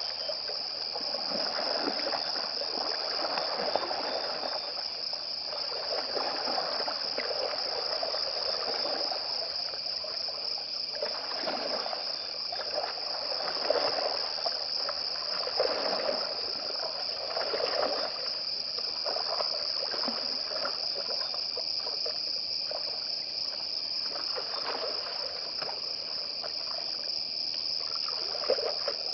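Steady high-pitched chorus of crickets, with irregular sloshing and splashing of water as a hippo wades through shallow water.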